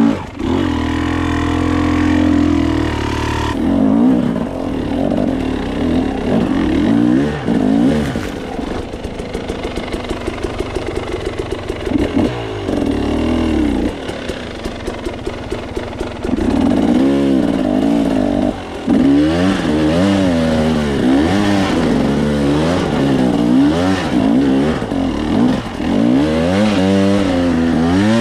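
Off-road dirt bike engine revving up and down in short bursts while picking over rocks. There is a stretch of slow, steady low-rev running in the middle, then repeated blips of the throttle near the end.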